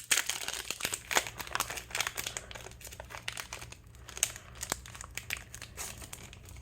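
Foil wrapper of a Pokémon trading card booster pack crinkling and tearing as it is opened by hand.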